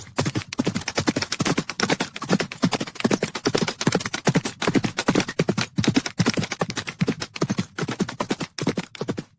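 Horses galloping: a rapid, uneven clatter of hoofbeats, several strikes a second.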